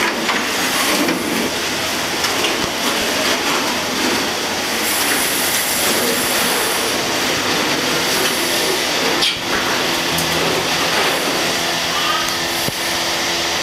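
Steady loud machine-like noise with a faint hum, and a single knock about nine seconds in.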